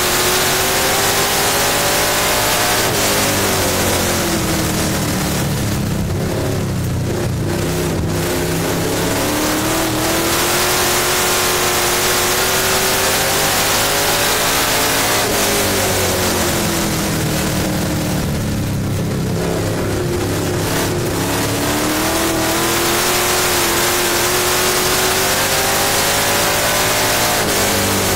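Dirt-track race car's engine heard from inside the cockpit at race speed. The engine note drops twice in long sweeps as the driver eases off, then climbs again each time under full throttle.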